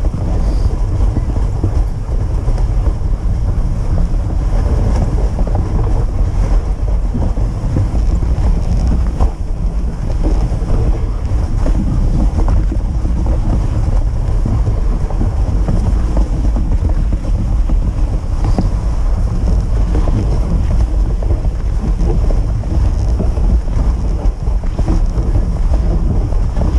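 Loud, steady wind buffeting the microphone of a camera riding on a moving dog sled, mixed with the low rumble of the sled running over a packed snow trail.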